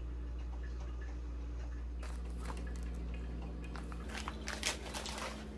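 Crinkly chip bag being handled: a run of soft crackles and crinkles that grows louder about four seconds in, over a low steady room hum.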